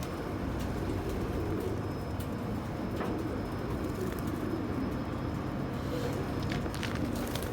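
Domestic pigeons cooing steadily in a loft, a continuous low chorus of overlapping coos, with a few light clicks near the end.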